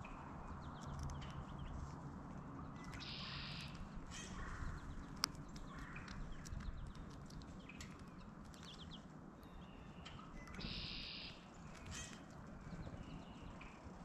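Blue jays and a red-bellied woodpecker at a feeder: scattered light taps and pecks, with two short harsh blue jay calls, one about three seconds in and one about eleven seconds in.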